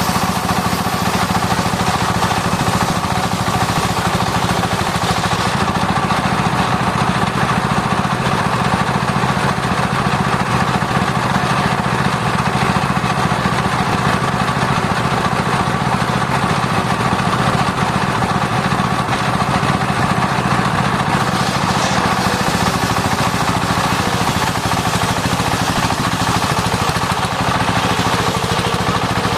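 Circular disc sawmill running steadily while sawing sengon wood. The machine drones without a break. A higher hiss drops away about five seconds in and comes back after about twenty seconds.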